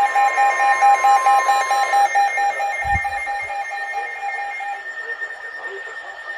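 Weather alert radio sounding its alarm: a loud, fast-pulsing beep about five times a second, with a steady warning tone underneath that ends about two seconds in. The beeping stops near five seconds in, leaving a fainter steady high tone, and there is a brief low thump about three seconds in.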